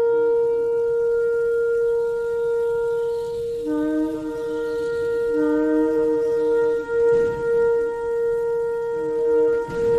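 Shofar (ram's horn) blasts layered together: one long steady note held throughout, with a second, lower shofar note coming in and dropping out several times.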